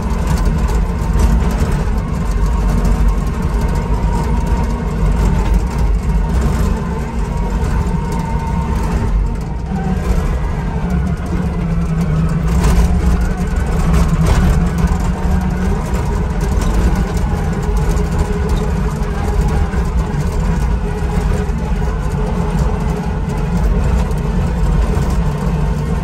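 Skid steer loader's engine running steadily under way, heard from inside the cab, with the machine rattling over rough ground.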